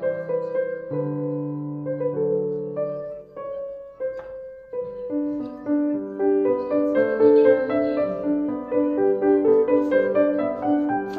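Piano music: a melody of held notes played one after another, quickening about halfway through.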